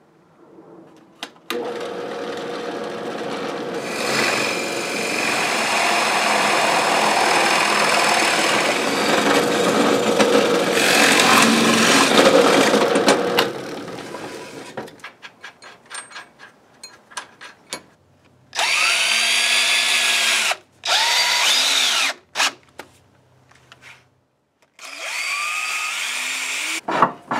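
Drill press boring a large hole through a thick pine board, running steadily for about twelve seconds, followed by a few handling clicks. Then a cordless drill runs in three short bursts, its motor pitch rising and falling with the trigger, at the mounting nuts of a cast-iron cabinet vise.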